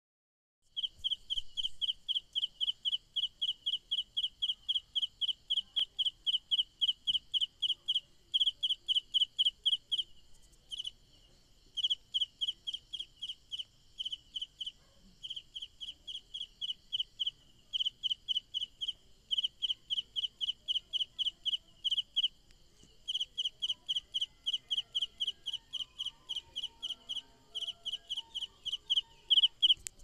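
Cricket chirping: a steady run of short, high chirps, about four a second, broken by a few brief pauses.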